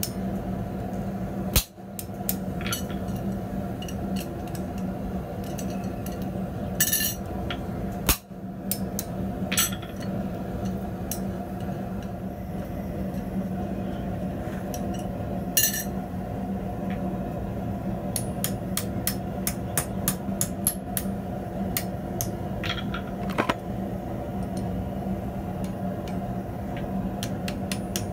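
Scattered sharp metal-on-metal knocks and clinks of a hammer, tongs and punch on a steel anvil, the loudest about eight seconds in, with a quick run of light clinks about two-thirds through. Underneath is a steady hum from the propane forge.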